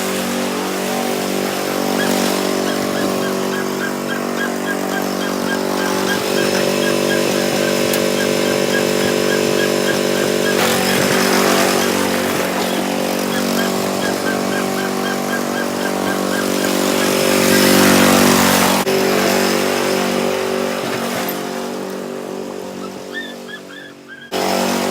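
Riding lawn mower engine running at steady speed while being driven, swelling louder twice and then dying away near the end.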